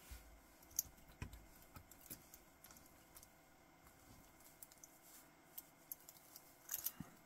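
Faint, scattered clicks and clinks of a metal watch bracelet's links being handled and shifted against a link-pin removal tool, with one sharper click about a second in and a short flurry of clicks near the end.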